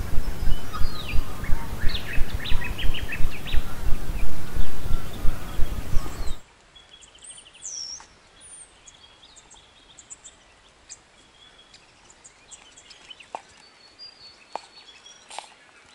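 Loud, pulsing low rumble of wind buffeting the microphone, with birds chirping over it. It cuts off suddenly about six seconds in, leaving faint bird calls and a few light clicks.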